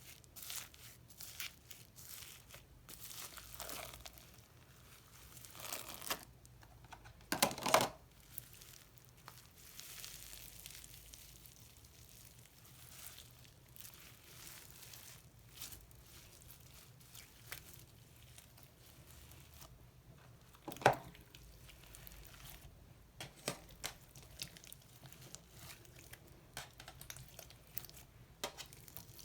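Slime being stretched, folded and squished by hand, giving an irregular run of sticky crackles and tearing sounds, with a couple of louder snaps.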